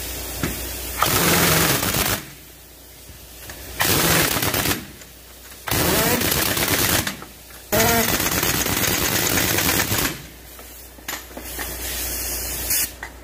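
Impact wrench hammering on a truck's wheel nuts in four separate bursts, the last and longest lasting about two seconds.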